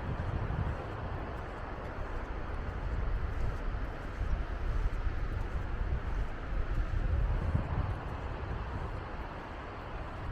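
Wind buffeting the microphone: a gusty low rumble over a steady rush of noise, swelling in the middle and easing near the end.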